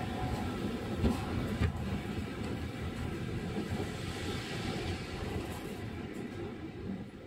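Sapporo streetcar M100-type tram (car M101) running, heard from inside the car: a steady rumble with a couple of sharp knocks about a second in. The running sound grows gradually quieter near the end.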